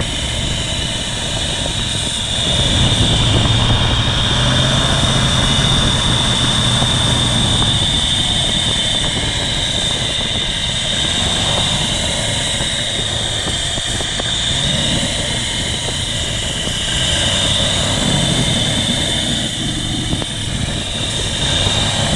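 Ford 302 V8 with a carburetor idling while starting fluid is sprayed around the carburetor base, with a steady high hiss alongside. The engine grows louder about two seconds in and again near the end, picking up on the fluid: the sign of a vacuum leak at the gasket at the back of the carburetor.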